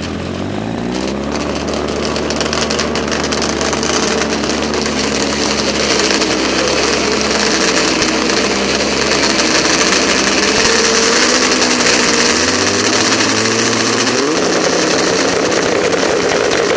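Turbocharged drag-racing snowmobile engine running loudly, its pitch holding steady and then stepping up and down twice near the end, with a hiss that grows louder.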